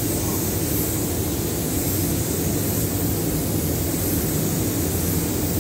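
Compressed-air paint spray gun hissing steadily as it sprays a car body, over a steady low rumble.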